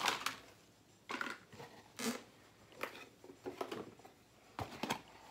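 Short rustling and clicking handling noises, about six of them spaced through the stretch, with no talk.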